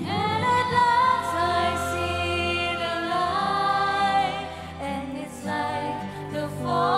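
Music: a ballad with a singing melody over a steady bass line.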